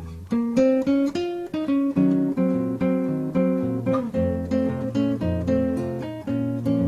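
Acoustic guitar music, a steady run of plucked notes and strummed chords.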